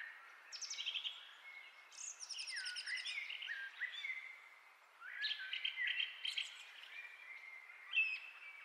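Songbirds singing in the background: several short phrases of quick, high chirps and trills.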